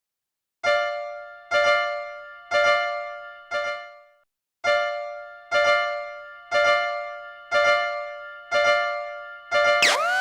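Cartoon level-crossing alarm made of a bell-like electronic chime: one ringing note struck about once a second, each fading away, with a short pause after the fourth strike. Near the end a rising, siren-like tone cuts in and holds.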